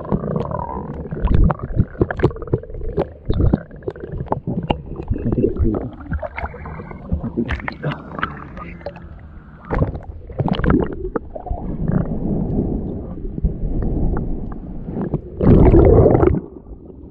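A hand digging and scraping in seabed sand for clams, heard underwater: muffled gurgling and rumbling with many irregular knocks and scrapes, and a louder rush of water about a second before the end.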